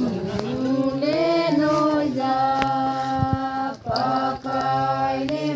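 A group of women singing together in unison, a chant-like Kuki song with long held notes that bend slowly in pitch.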